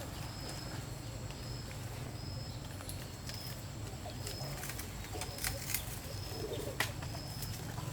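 A bird's short high note repeating about once a second over a low steady outdoor hum, with a few light knocks in the second half.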